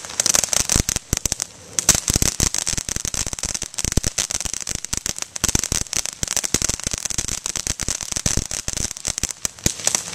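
Ground fountain firework spraying sparks with a hiss and dense, rapid crackling, easing off briefly about a second and a half in.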